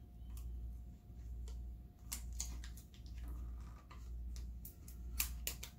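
Crisp ticks and crackles of transfer tape being worked and peeled off rub-on paper letters, loudest about two seconds in and again near the end. Under them runs a low hum that swells about once a second.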